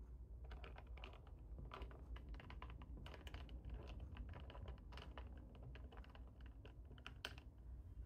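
Faint typing on a computer keyboard: quick, irregular runs of light key clicks.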